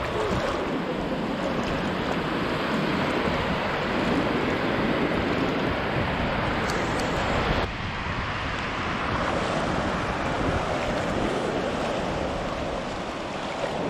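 Shallow Baltic Sea surf washing in, with steady wind noise on the microphone. The noise shifts abruptly about eight seconds in.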